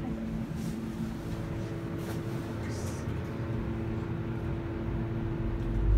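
Elevator cab travelling down: the steady hum of the cab's ventilation fan over the low rumble of the moving car, the rumble growing louder near the end.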